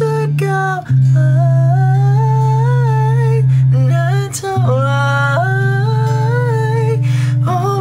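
Slow pop ballad with a wordless, hummed vocal melody over held low chord notes that shift twice.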